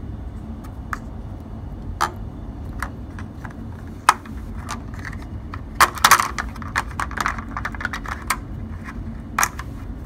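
Hard plastic thermostat cover on a Ruud electric water heater being unclipped and pulled off by hand: scattered sharp plastic clicks and knocks, with a quick cluster of clicks and rattles about six seconds in.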